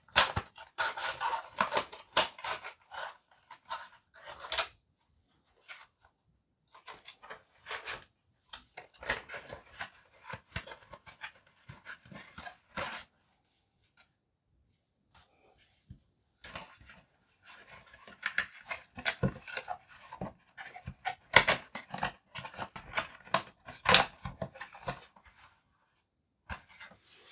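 Product packaging being opened and handled: irregular bursts of rustling, crinkling and sharp clicks, with a few brief pauses.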